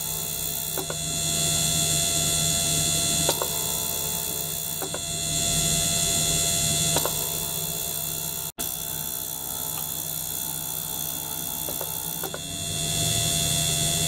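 Ultrasonic cleaner running with a small liquid-circulation pump: a steady electrical hum under a hiss that swells and eases every few seconds, with a faint click at some of the changes.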